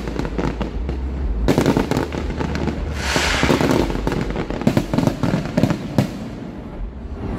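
A large fireworks display going off: a rapid run of bangs and pops, with a burst of dense crackling from about three seconds in.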